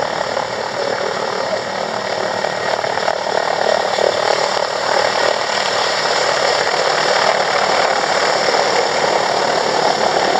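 Helicopter hovering low, its engines and rotor giving a steady, dense noise that grows slightly louder.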